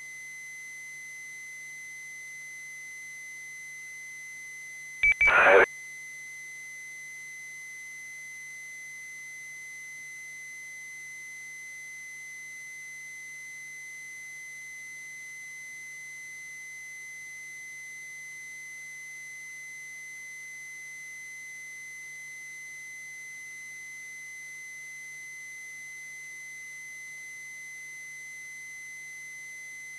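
Steady high, beep-like tone over a faint low hum on a live amateur-radio receiver feed. About five seconds in comes one brief loud burst from the radio, lasting under a second.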